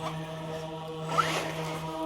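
Music with a steady low drone and a short rising swoosh about every second.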